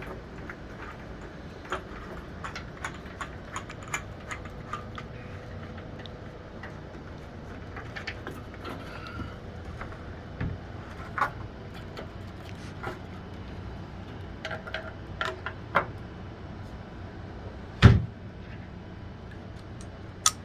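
Hard plastic feeder parts being handled and taken apart: scattered light clicks and knocks, with one loud knock about eighteen seconds in.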